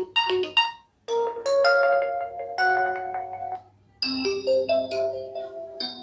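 Oppo A55 preset ringtones previewed through the phone's speaker, one after another: short melodies, each cut off suddenly as the next tone is tapped, with new tunes starting about a second in and again about four seconds in.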